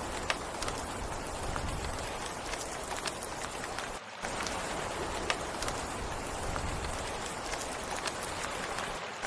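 Steady rain falling, with the sharp clicks of single drops landing now and then. The sound dips briefly about four seconds in.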